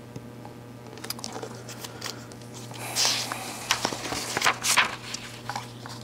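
Paper being handled, crinkling and rustling in a quick series of rustles from about halfway through, over a low steady hum.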